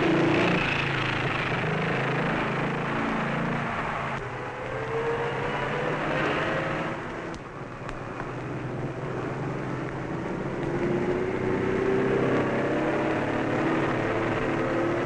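Caterpillar crawler tractor's engine running steadily, its pitch rising and falling as it works over rough ground.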